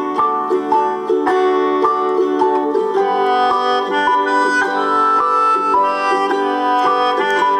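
Background music: an instrumental tune of quick, sharply struck string notes.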